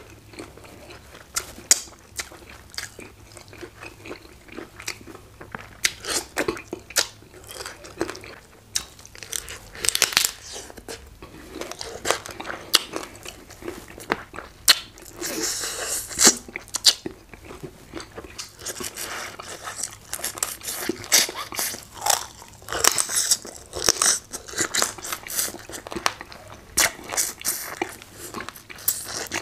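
A person biting and chewing tough hard chicken, with irregular crunches, clicks and wet mouth and lip sounds.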